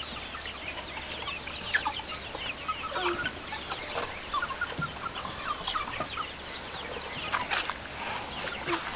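A coop full of young chickens, about two months old, chirping and peeping together: a constant chatter of many short, high, overlapping calls, with a few sharp clicks near the end.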